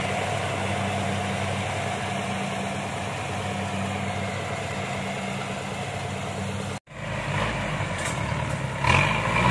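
Kubota DC-70 rice combine harvester's engine running steadily with a low hum as it harvests. About seven seconds in, the sound cuts abruptly to a rice-hauling cart's engine running closer and louder, with a few knocks near the end.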